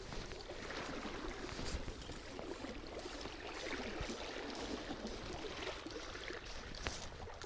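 A swollen, fast river current rushing and swirling steadily around a wading angler's legs, with a few faint clicks.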